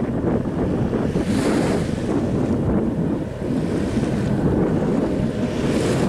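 Wind blowing across the microphone, a steady low rush that swells in gusts about a second in and again near the end.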